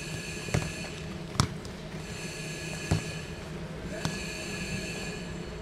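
Footballs being kicked in a passing drill on a grass pitch: four sharp kicks spread unevenly over about four seconds, the second the loudest.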